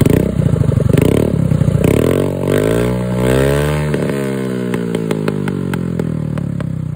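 Honda Activa scooter's single-cylinder four-stroke engine revved through an aftermarket SC Project exhaust with the scooter on its stand. The engine is blipped a few times, then held up as its pitch climbs. About four seconds in it falls away with a rapid string of sharp crackling pops from the exhaust, the 'firecrackers' of overrun backfire.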